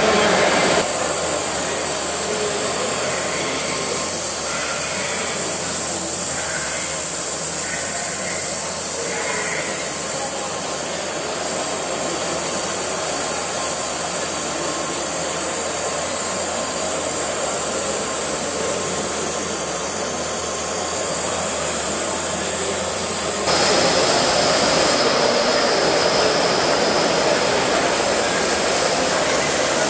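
Steady hiss and rush of steam from a live-steam gauge 1 model of the LMS Turbomotive, a steam-turbine-driven locomotive. The sound gets louder and fuller about 23 seconds in.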